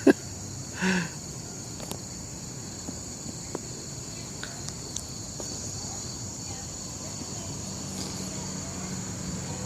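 A steady, high-pitched chorus of insects rising from the forest, with one short louder sound about a second in and a few faint clicks.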